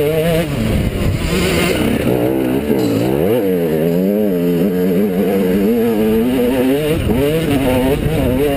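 Enduro dirt bike's single-cylinder engine, heard close up from the rider's helmet, revving up and down as the throttle is worked over a rocky track. The revs drop about three seconds in and then build again.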